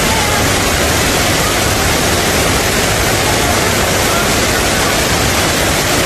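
Fukuroda Falls, a wide tiered waterfall, heard close up: a loud, steady rush of falling water.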